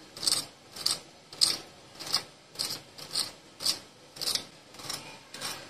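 A fork crunching into the crisp breadcrumb crust of deep-fried potato balls, about ten short crunches in an even series, nearly two a second, showing how crispy the crust is.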